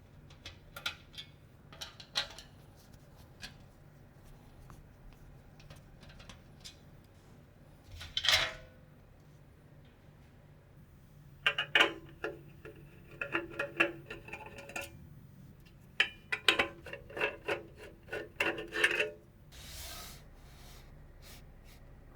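PC parts being handled and fitted: scattered clicks, rubs and scrapes of metal and plastic, with a loud scrape about 8 seconds in and two runs of rapid, slightly ringing clicks through the middle and near the end.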